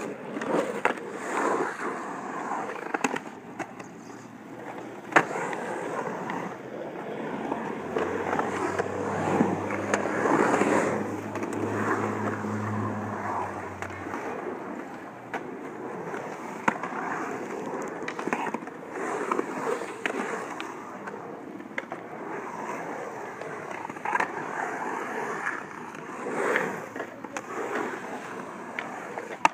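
Skateboard wheels rolling and carving across a concrete bowl, a continuous grinding roll that swells and fades as the rider pumps the walls, with occasional sharp clacks of the board on the concrete. A low steady hum joins for several seconds in the middle.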